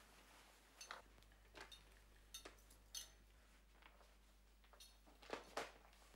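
Near silence: quiet room tone with a handful of faint, scattered clicks and taps, two slightly stronger ones near the end.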